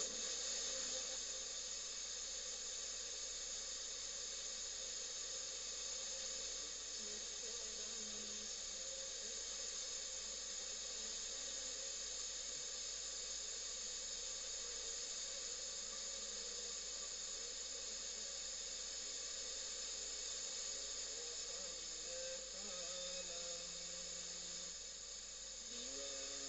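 FM radio receiver giving out steady static hiss, with no clear station coming through. Faint pitched traces of a station's audio show in the hiss near the end.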